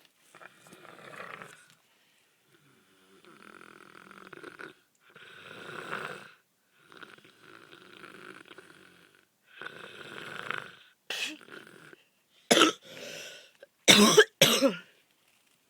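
A person snoring, about five long rasping snores one after another, followed near the end by several short, much louder abrupt bursts.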